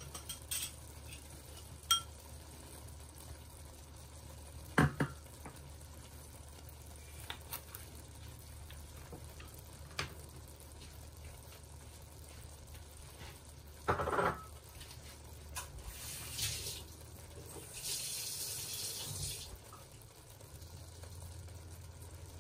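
Scattered clinks and knocks of kitchen dishes and utensils over a steady low hum, the loudest knock about two thirds of the way in, with a short hiss near the end.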